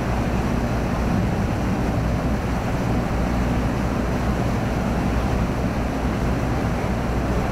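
A cruise boat under way: its engine runs with a steady low hum while the wake churns and water rushes behind the stern.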